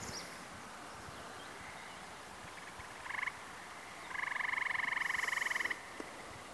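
A frog calling with a rapid trill: a short burst about three seconds in, then a longer trill lasting about a second and a half.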